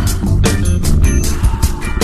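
Background music with a drum beat and pitched instruments.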